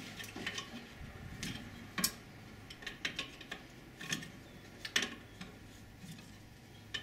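Scattered light metallic clicks and taps of hand tools and metal brake-line fittings being worked at a car's brake master cylinder, with sharper knocks about two and five seconds in.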